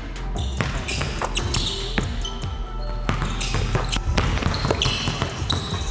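Basketballs bouncing on a gym floor, irregular dribbles and impacts from players working quick pickups into jump shots.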